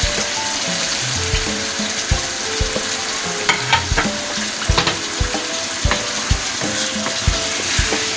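Chicken pieces frying in hot oil in a karahi, a steady sizzle, while a spoon stirs them and knocks against the pan about twice a second.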